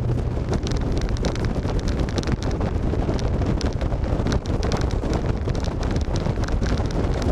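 Rough, crackling wind noise buffeting the microphone over the low rumble of a semi-truck climbing a snowy hill.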